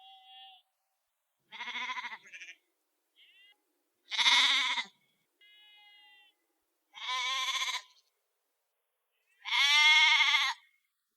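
Sheep bleating: four loud, quavering baas, each about a second long and roughly three seconds apart, with fainter, shorter bleats in between.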